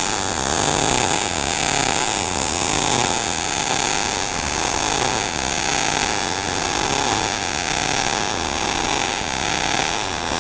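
ESAB Rebel 235 MIG welding arc in sMIG mode, burning steadily as wire feeds at 230 inches per minute, at about 112 amps and 18 volts, on an uphill fill pass in a groove joint. The arc runs even and unbroken, "beyond smooth".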